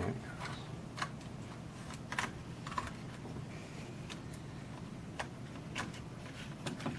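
Scattered light clicks and ticks from a precision screwdriver and a tiny metal screw being worked out of a plastic digital camera body, about ten at irregular intervals over a faint steady hum.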